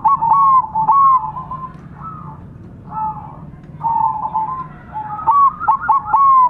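Several zebra doves (perkutut) cooing at once, their short rising-and-falling coo phrases overlapping and answering one another, with a quieter stretch in the middle. A steady low hum runs underneath.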